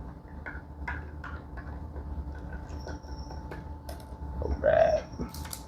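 A utensil stirring instant coffee in a cup: irregular light clicks and scraping against the container. There is a brief vocal sound near the end.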